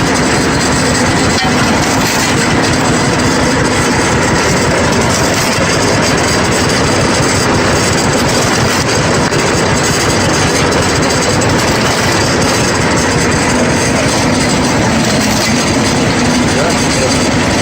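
Tractor PTO-driven branch shredder and log splitter running: a loud, steady mechanical din.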